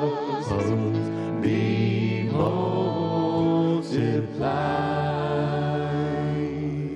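A small praise band sings a worship song: several voices at microphones over guitars and piano, with long held notes. About four and a half seconds in it settles on a sustained final chord that begins to fade near the end.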